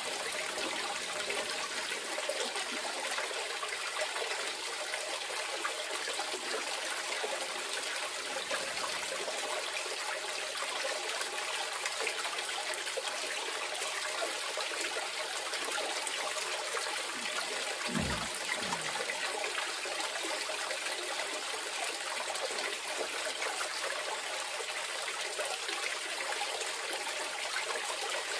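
Water running steadily down a small aluminium cleanup sluice over micro dream mat and trickling off the end into a bucket, with black-sand concentrates being spooned in slowly. One brief low thump about two-thirds of the way through.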